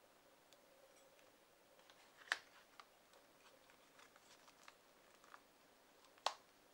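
Quiet handling of a fork and a small plastic sauce packet being opened and squeezed. Two sharp clicks stand out, one about two seconds in and one just before the end, with faint light ticks between.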